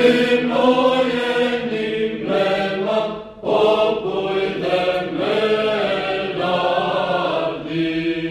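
Mixed choir singing Byzantine chant in unison phrases, with a short break about three seconds in and a note held near the end.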